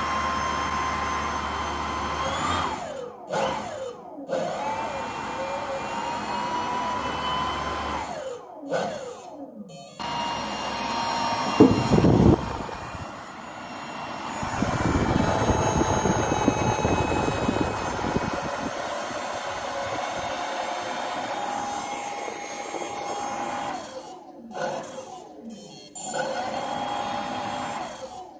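A 3D-printed ducted fan driven by a brushless (BLDC) motor running with a steady electric whine and rush of air, its pitch dropping sharply and recovering several times as the speed sags. Around the middle a louder rushing noise rises as a hand is held to the fan. The fan is not working properly, its ESC overheating.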